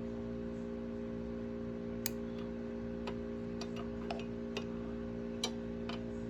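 Light, irregular clicks of a hemostat and wire being handled, about ten scattered through, over a steady low electrical hum.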